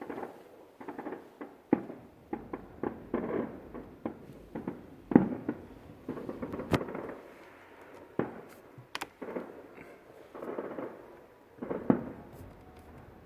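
Fireworks display: an irregular series of bangs and crackles, the loudest bangs about five seconds in and near the end.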